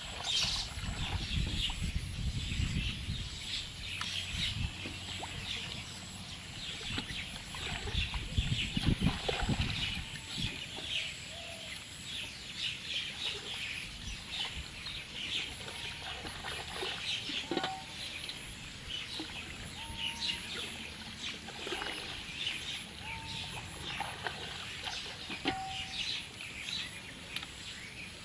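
Many birds chirping continuously, with a few short separate calls. Water sloshing around a person wading through a flooded, weed-choked field, heaviest near the start and about eight to ten seconds in.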